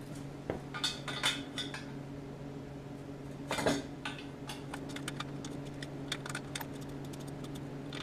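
Light metallic clicks and clinks as a steel exhaust header is handled, with one louder clunk about three and a half seconds in and quicker small clicks later, over a steady low hum.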